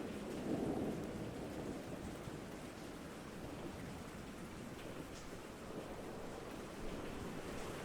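Steady rain falling, an even hiss. A low rumble swells in the first second or so and then eases off.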